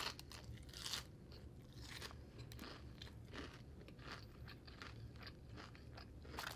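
Close-miked chewing: a run of many small, quiet crunches as food is bitten and chewed.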